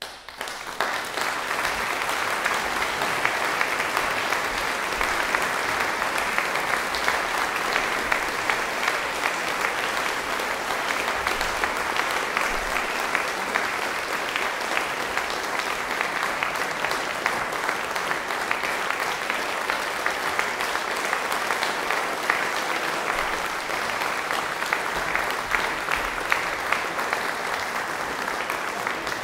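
Concert audience applauding: many hands clapping, starting suddenly out of silence, filling out within about a second and then holding steady.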